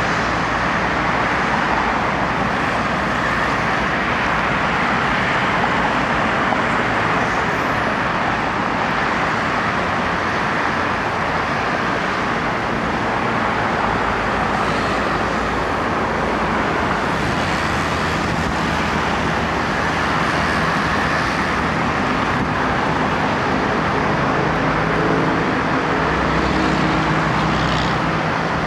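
Steady engine noise with a constant rushing hiss; a low, pitched engine hum becomes clearer near the end.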